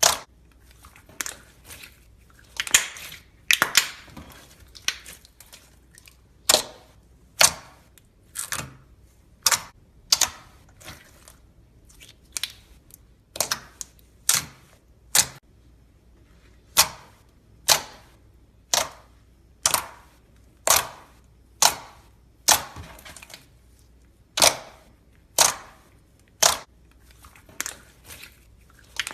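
Slime being pressed and squished, giving off sharp popping clicks as trapped air bursts, about one a second and sometimes two in quick succession.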